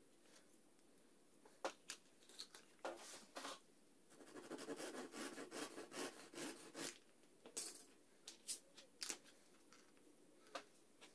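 Small wooden pieces clicking and tapping as they are handled and fitted together on a cutting mat, with a few seconds of rapid crackling about four seconds in as a knife blade works across a thin wooden dowel.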